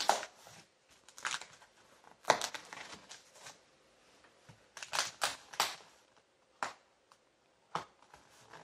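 Dull folding knife slitting packing tape along the seams of a cardboard box, with the cardboard scraping and creaking. The sound comes in short, irregular bursts with quiet between, the longest lasting about a second.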